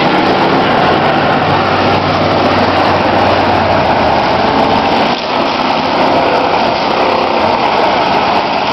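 Engines of several demolition-derby cars running hard on the track at once, heard as a loud, steady mix of engine noise.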